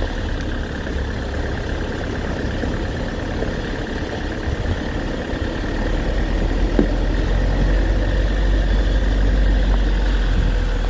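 Kia Sorento SUV's engine running steadily at low revs in normal first gear, four-wheel drive with the centre differential locked, as it crawls up a steep gravelly hill. It is heard from inside the cabin as a continuous low rumble that grows slightly louder from about halfway.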